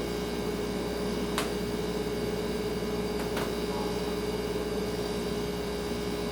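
Refrigerator running with a steady hum: one constant mid-pitched tone over a low drone and a soft hiss. Two light clicks, about a second and a half in and again two seconds later.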